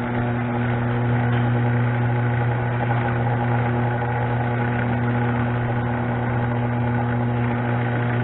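Craftsman chain-drive garage door opener running under power, its motor giving a steady strong hum with chain and gear rattle as it drives the door, now working again after its worn drive gear was replaced.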